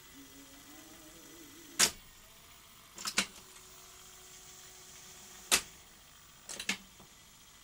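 Philips N1700-format video recorder playing a tape, its transport giving short, irregular scrunching crackles: one about two seconds in, a pair at three seconds, one at five and a half seconds and a quick cluster near the end. The scrunching comes from the pinch roller area, a sign that the pinch roller needs attention and the capstan maybe more cleaning.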